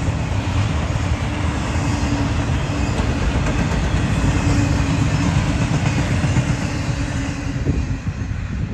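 Double-stack intermodal container freight train rolling past on steel rails, a steady, loud wheel-and-rail noise. The last cars go by near the end.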